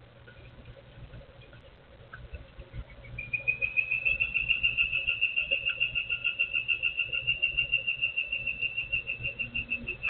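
A long, even trill of rapid high notes at one steady pitch, starting about three seconds in and running on for about seven seconds.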